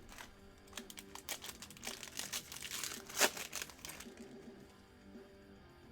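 Crinkling and tearing of a foil trading-card pack wrapper as it is opened, a run of crackles with one sharp snap in the middle that dies away in the last two seconds.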